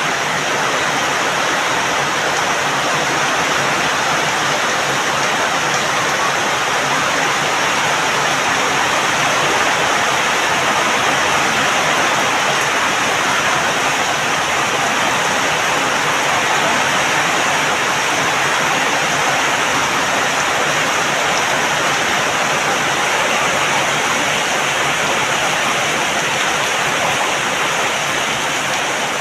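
Heavy rain falling steadily, a dense, even hiss with no thunder or single drops standing out.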